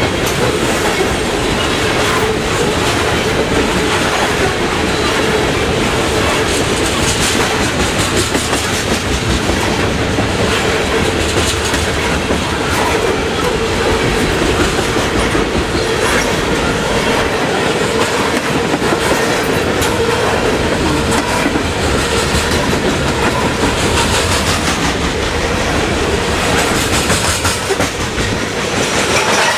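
Loaded coal train's hopper cars rolling past close by: a steady rumble of steel wheels on rail with a clickety-clack over the rail joints and a faint steady whine underneath that fades out near the end.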